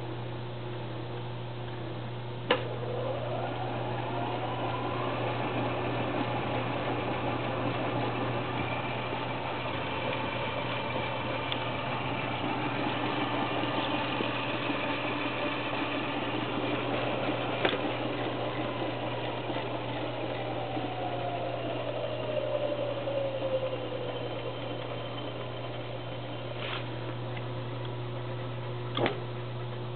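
A 1941 Bendix Deluxe automatic washer runs with its body panels off, under a steady low hum. After a sharp click its drum speeds up with a rising whine and runs steadily. After a second click about 15 seconds later it winds down with a slowly falling whine, and a further click comes near the end.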